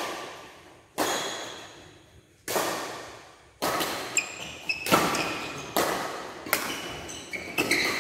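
Badminton rally: sharp strikes of rackets on the shuttlecock, roughly one every second, each ringing out in the large hall. Sneakers squeak on the court floor in the second half.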